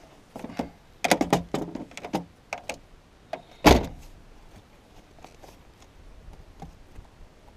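A quick run of knocks and clatters, then one loud thump about three and a half seconds in.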